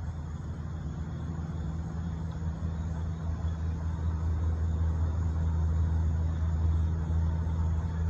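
A low, steady rumble with a hum, growing gradually louder.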